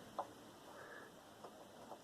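A few faint, short clicks and taps from working on a desktop computer tower case during disassembly.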